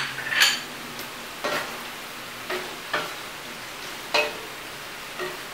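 Tofu and ground chicken sizzling in a stainless steel wok, stir-fried with a wooden spatula that scrapes and knocks against the pan several times at irregular intervals over a steady sizzle.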